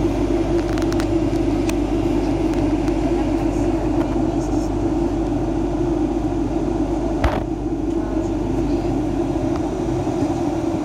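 Steady cabin noise inside a Boeing 737-800 descending to land: the drone of the engines and airflow, with one short knock about seven seconds in.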